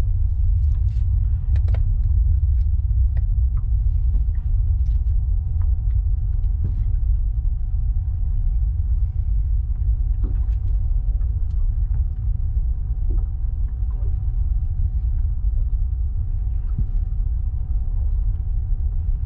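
Distant Atlas V rocket rising after launch: a deep, steady rumble from its engines.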